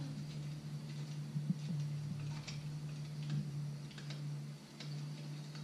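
Faint, irregular crackles of a bonfire on a TV drama's soundtrack, heard through the TV speakers over a steady low hum.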